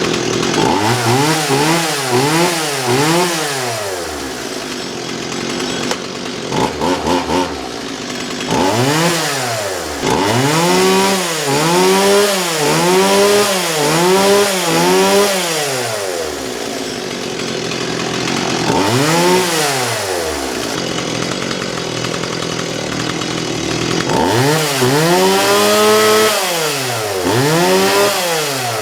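Stihl MS170 chainsaw's small two-stroke engine idling and being revved over and over, its pitch rising and falling with each blip of the throttle. The blips come in runs: about four at the start, a longer run in the middle, one on its own, and another run near the end. The saw runs well after years unused.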